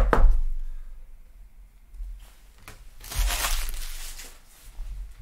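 Trading cards and plastic card packaging being handled: a sharp knock at the start, then a crinkling, tearing noise about three seconds in, like a pack wrapper being ripped open.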